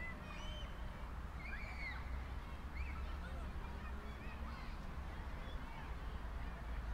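Faint, scattered bird calls, many short chirps, over a low steady hum.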